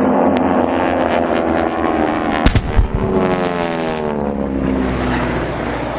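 A propeller aircraft passes overhead, its engine note falling steadily in pitch as it goes by. About two and a half seconds in, a pyrotechnic fireball explosion goes off with one sharp boom, followed by a low rumble.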